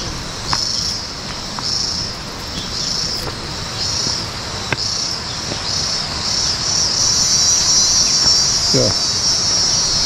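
Cicada singing: short high buzzing phrases repeating about once a second, which run together into one continuous buzz about seven seconds in.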